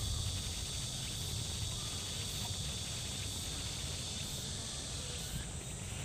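Summer forest ambience: insects in the trees keep up a steady high hiss over a low rumble.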